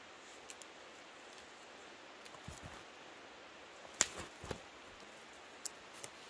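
Handling noise from a rope worked by gloved hands: scattered sharp clicks and a few light knocks over a steady faint hiss. The sharpest click comes about four seconds in.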